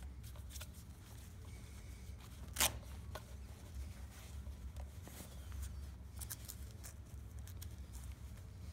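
Handling noise as an LVAD battery is pushed into a mesh vest pocket and the pocket's Velcro is worked: faint fabric rustling and small clicks, with one short, sharp louder sound about two and a half seconds in.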